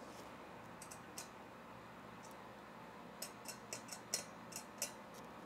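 Faint, light clicks and ticks, a few scattered at first and then a quicker run of them in the second half.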